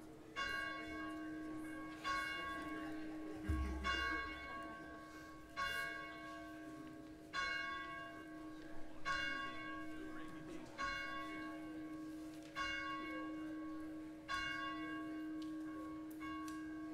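A church bell tolling at a slow, even pace: ten strokes about one and three-quarter seconds apart, each ringing on into the next. A low thump comes about three and a half seconds in.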